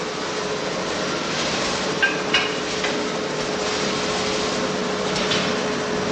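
Coffee roasting plant machinery running with a steady hum, with a few light knocks or clanks about two seconds in and again near the five-second mark.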